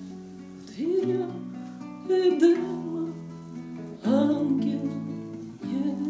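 Woman singing a slow, held melody to a plucked nylon-string classical guitar, her sung notes sliding up into pitch as each of four phrases begins.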